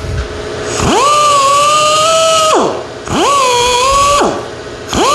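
Straight die grinder with a small 3M Roloc abrasive disc, engine-turning an aluminum sheet: it spins up to a high whine, holds steady while the disc grinds one swirl circle, then winds down. This happens twice, and a third run starts near the end.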